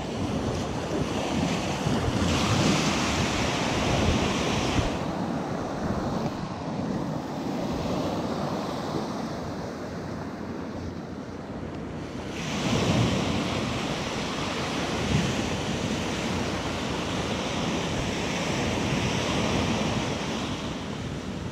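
Small Atlantic Ocean waves breaking and washing up the sand close by, a steady rushing hiss that swells louder twice, about two seconds in and again about halfway through.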